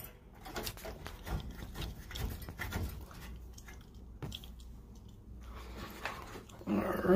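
Light, irregular metallic clicks and taps of a wrench working the brass flare nut of a new thermostatic expansion valve loosely onto its fitting, with copper tubing being handled. A short pitched sound begins near the end.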